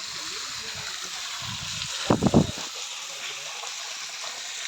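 Waterfall rushing steadily. About two seconds in, a brief cluster of loud low thumps, the loudest moment, stands out over it.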